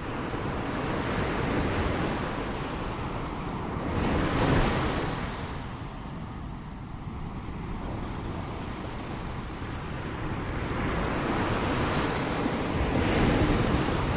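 Ocean waves breaking and washing in, a steady surf rush that swells twice, about four seconds in and again near the end, with some wind.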